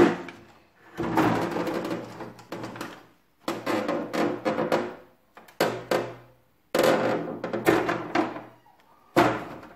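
Knocks and rattles from handling the opened portable air conditioner's plastic housing and parts: a sharp knock at the start, then several separate bursts of clattering, each dying away before the next.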